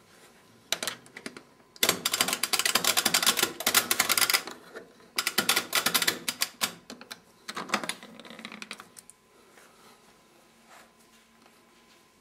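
Siemens Siwamat 960 washing machine being started: bursts of rapid mechanical clicking and rattling, the longest about two and a half seconds, dying away after about nine seconds.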